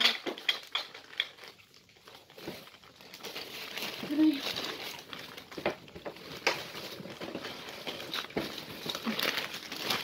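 Plastic bags and wrappers crinkling and rustling as items are handled and unpacked, in irregular bursts with small clicks, quieter for a moment early on.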